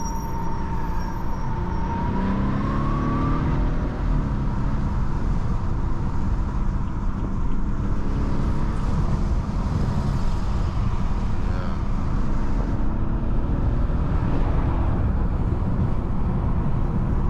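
BMW F30 328i's turbocharged N20 four-cylinder engine accelerating, heard from inside the cabin. Its pitch rises from about two seconds in, there is a short drop in level about four seconds in, and then it settles into a steady drone over road noise.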